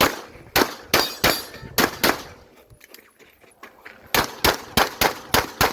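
Rapid fire from a Glock 17 pistol: five quick shots, a pause of about two seconds, then a fast string of six more shots about a third of a second apart.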